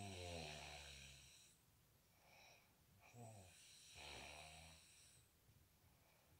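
A man snoring in his sleep: two long snores, each over a second long, about three seconds apart, with a faint breath between them.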